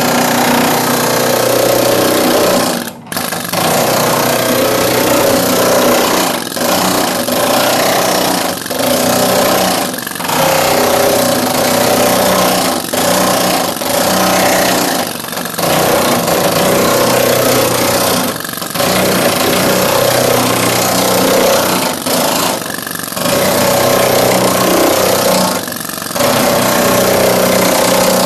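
Pneumatic air hammer driving a flat chisel at about 40 PSI, chattering rapidly against a car's sheet-metal underbody as it chips off undercoating. It runs loud in bursts, with brief pauses every few seconds.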